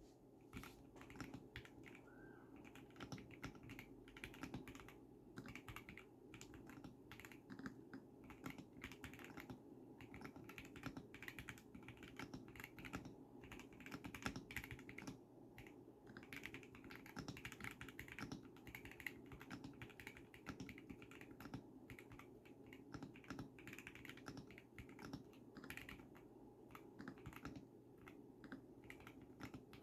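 Continuous typing on a Zuoya GMK67 mechanical keyboard with lubed Akko Pink switches, PBT Cherry-profile keycaps and soundproofing foam: a quiet, irregular stream of keystroke clacks, several a second, with no pauses of note.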